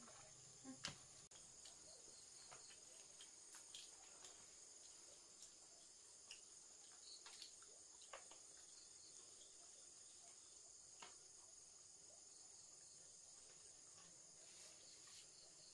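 Faint, steady chirring of crickets, with scattered soft clicks and taps.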